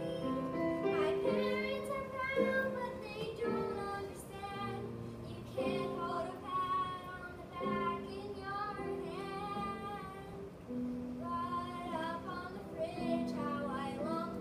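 A young girl singing a solo song over an instrumental accompaniment of held chords.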